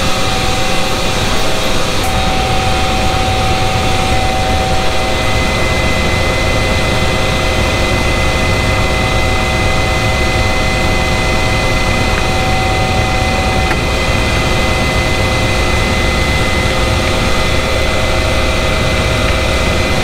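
Air handler's belt-driven centrifugal blower and its electric motor running steadily: a loud, even rush of moving air over a low rumble, with a few steady whining tones on top.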